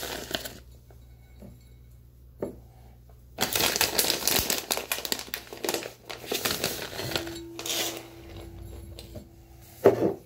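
Plastic bag of shredded cheese crinkling as it is handled and shaken out over a measuring cup. The crinkling comes in bursts, the longest lasting a couple of seconds near the middle, with quieter gaps between.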